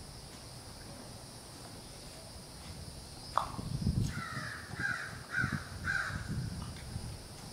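A crow cawing four times in quick succession, the harsh caws about half a second apart, after a single sharp click a little after three seconds in.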